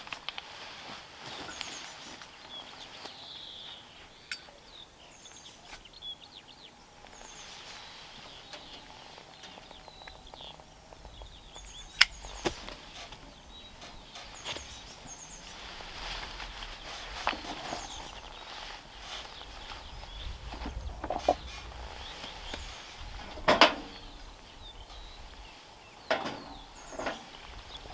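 Kindling being lit in a small titanium wood-burning camp stove: occasional sharp cracks and knocks, the loudest near the middle and another later, over birds singing in the background.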